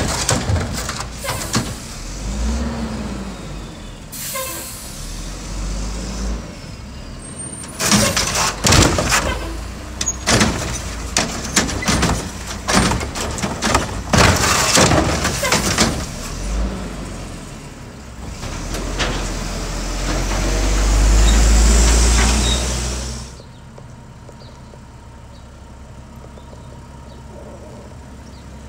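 Mack front-loader garbage truck with a Wittke body and Curotto Can cart arm at work: a run of clanks and bangs from the cart gear, with short air hisses, then the diesel engine revving up and dropping suddenly back to a steady idle.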